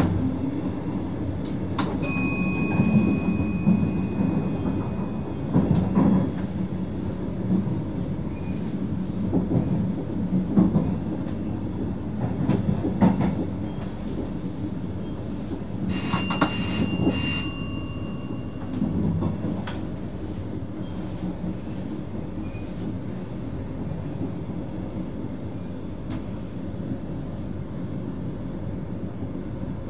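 VIRM double-deck electric train running, heard from the driver's cab: a steady low rumble with knocks of the wheels over rail joints and points. A high wheel squeal sounds for about three seconds, about two seconds in, and a short pulsing high squeal comes around sixteen seconds. The running sound gets quieter after about twenty seconds.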